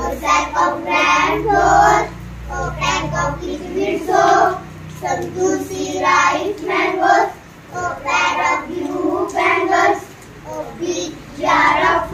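Children singing an English action poem together in a sing-song chant, phrase by phrase with brief pauses between lines.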